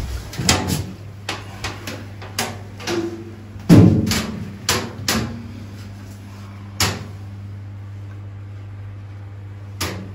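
Footsteps and irregular metallic knocks and clanks on aluminium deck plates and chequer plate, over a steady low machinery hum. The knocks come thick for the first five seconds or so, then only a couple more after about seven seconds.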